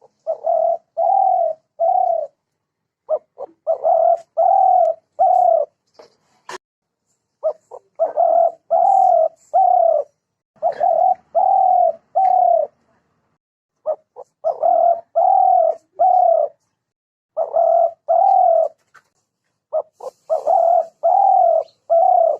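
Spotted dove calling: phrase after phrase of soft, low coos, each a short lead-in note followed by about three longer coos, with a pause of a second or so between phrases. A single sharp click sounds about six and a half seconds in.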